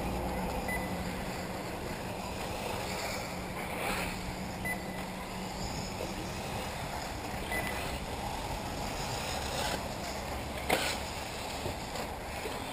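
1/8-scale electric RC buggies racing on an off-road track: a steady wash of motor and tyre noise, with three short high beeps spread through it and a sharp knock near the end.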